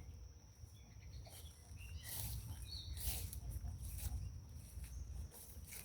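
Faint summer-evening outdoor ambience: a steady high insect trill with a few faint chirps about two to three seconds in, over low wind rumble on the microphone.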